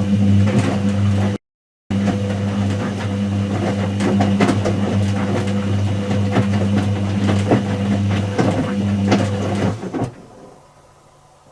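Whirlpool AWG023 top-loading washing machine running: a steady electric hum with clattering and rattling over it. It cuts out briefly about a second and a half in and stops abruptly about ten seconds in.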